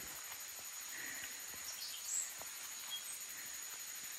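Outdoor ambience of insects and birds: a steady high insect buzz throughout, with a few short high chirps that drop in pitch near the middle.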